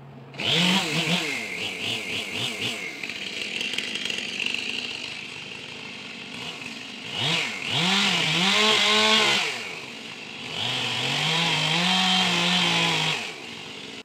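Chainsaw revved from idle to full throttle in three long bursts, its pitch sagging and recovering under load as it cuts into a cedar trunk. The engine note cuts off sharply near the end.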